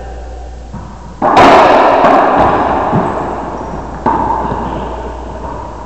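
Racquetball shots: a racquetball cracking off racquet and walls, each hit ringing on in the enclosed court's echo. The loudest hit comes about a second in, and another sharp hit comes about four seconds in.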